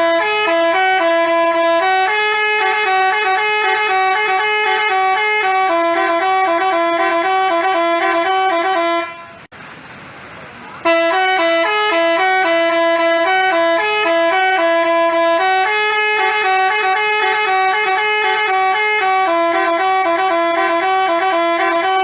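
Telolet basuri multi-tone bus horn playing a tune in quick stepped notes. It plays two long phrases with a break of under two seconds about halfway through, when only a quieter background noise is heard.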